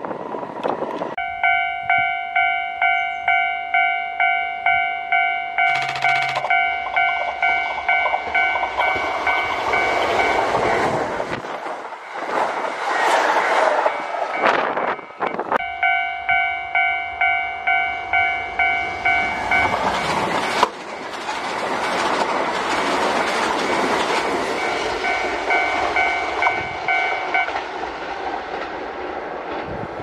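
Railway level-crossing warning bell ringing in a steady run of electronic clangs, about one and a half a second, stopping for a few seconds midway and fainter near the end. Under the bell's fainter last stretch comes the rising rumble of an approaching Kintetsu limited express train.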